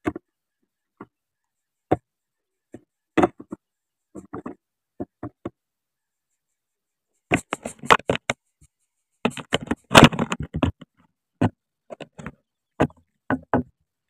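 Irregular sharp clicks and crackles of the dry grass nest as an adult greater coucal shifts about over its chicks, scattered at first and then thick in two dense clusters in the second half.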